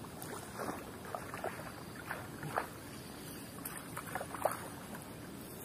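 Short, irregular splashes and sloshes of water as a hooked giant snakehead (toman) thrashes at the surface close to the bank.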